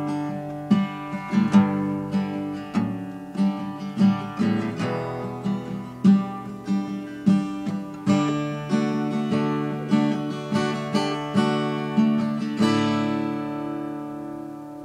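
Acoustic guitar playing the closing bars of a song, a run of chords; near the end a last chord is struck and left to ring out, fading away.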